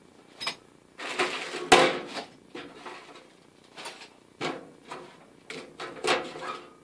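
Things being taken out of a steel toolbox drawer: plastic bags of hardware rustling, and small objects knocking and scraping on the sheet-metal drawer floor in a string of separate clatters. The sharpest knock comes a little under two seconds in.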